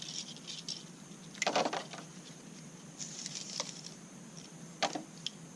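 Hands working on a plastic trimmer head and its line: light clicks and rustles, with two louder knocks, one about a second and a half in and one near the end.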